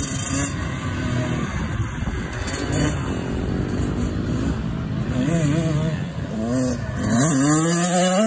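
Kawasaki KX100 dirt bike's two-stroke single-cylinder engine being ridden on a dirt track, revving up and down; near the end it accelerates past close by, its pitch rising, at its loudest.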